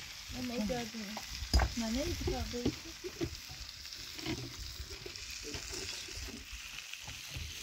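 Food sizzling as it fries in a pan: a steady hiss throughout, with a sharp knock about a second and a half in.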